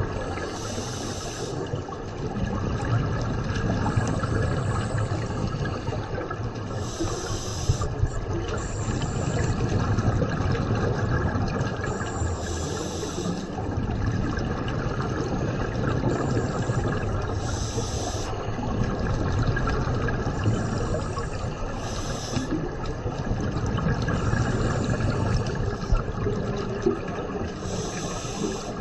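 Scuba regulator breathing heard underwater: a hissing burst of exhaled bubbles about every five seconds over a steady low rumble of water.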